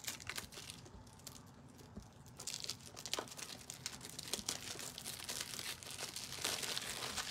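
Crinkling and rustling of something being handled, with many small scattered clicks, getting busier and louder from a few seconds in.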